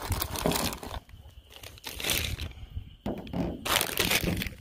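A plastic bag crinkling and a cardboard box being handled during unpacking, in irregular rustling bursts with short pauses.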